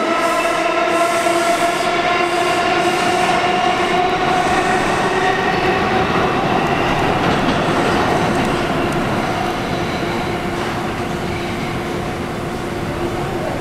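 Bombardier R179 subway train pulling out and running away into a curved tunnel: wheels rumbling on the rails under a steady whine of several even tones, fading slightly as it goes.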